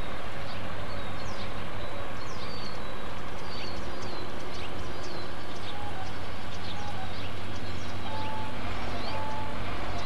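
Steady background rumble and hiss, with many quick, high chirps and short downward notes from small birds throughout. A few brief, lower whistled notes come in the second half.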